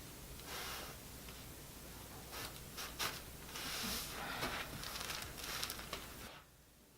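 Rustling and shuffling of clothing and bodies on a chiropractic treatment table, with breathy hisses and a single sharp click about three seconds in. The sound stops abruptly near the end.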